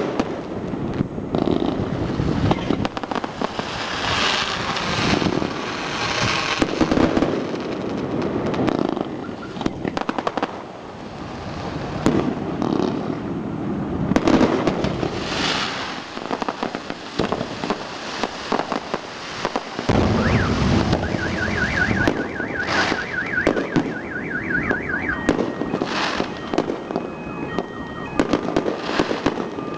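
Aerial fireworks bursting and crackling, bang after bang. About twenty seconds in, a rapid warbling electronic tone joins for a few seconds, followed by short repeated beeps.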